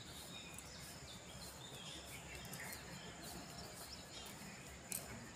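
Quiet outdoor ambience: scattered faint bird chirps over a steady, thin high-pitched hum, with one sharp click near the end.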